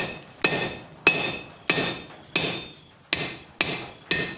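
Blacksmith's hammer striking hot steel on an anvil: about eight steady blows, roughly two a second, each leaving a bright metallic ring. He is cutting through the forge-welded bar.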